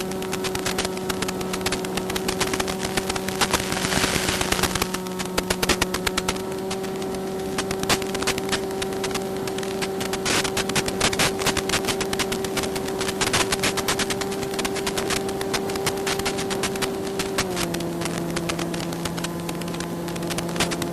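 Electric motor and propeller of an FPV aircraft in flight, a steady hum that drops in pitch about three-quarters of the way through as the throttle comes back, with constant crackling over it.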